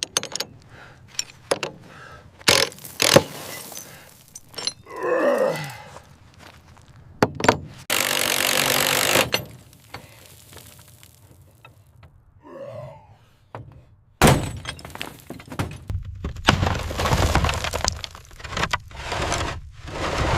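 Irregular thunks, knocks and scraping of metal parts being handled and worked loose from a corroded helicopter fuselage. A steady rasping noise of about a second and a half comes near the middle, and a longer noisy stretch fills the last few seconds.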